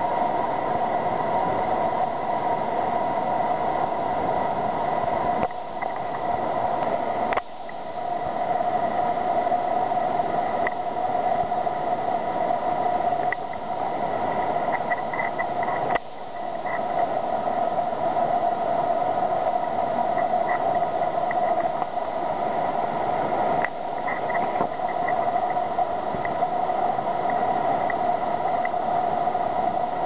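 Melincourt Falls, an 80 ft waterfall, crashing onto rocks in a steady, loud rush of water, heard through a compact camera's built-in microphone that the spray makes sound strange. The level drops abruptly for a moment about four times.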